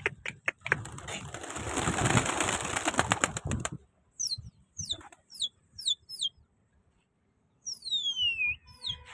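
A flock of domestic pigeons flapping their wings for the first few seconds: a dense rush of wingbeats and sharp wing claps. After that, high bird chirps: six short falling notes, then one longer call gliding down in pitch near the end.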